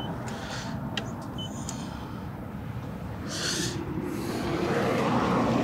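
Wind rumbling on the microphone over outdoor hum, with two faint short beeps from a paint thickness gauge about a second and a half apart and a brief hiss a little past halfway.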